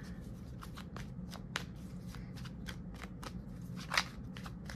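A deck of tarot cards being shuffled, a quick run of light flicking and riffling clicks. There is a sharper snap about a second and a half in and a louder one near the end.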